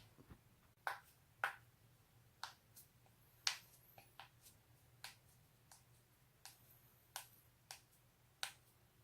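Joints cracking: a series of about a dozen sharp, short pops at irregular intervals, the kind made by cracking one's own neck and back joints.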